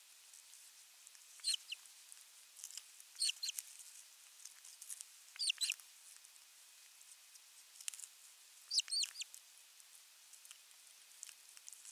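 Ospreys giving short, high-pitched chirping calls in four bursts a few seconds apart, with faint scattered clicks in between.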